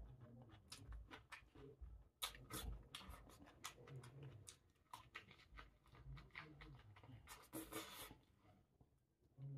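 Faint eating sounds: chewing, with many small clicks and soft smacks from picking at and tearing fried fish.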